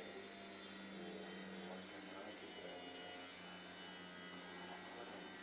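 Steady low electrical hum, like mains hum in the room's recording, with faint murmured voices in places.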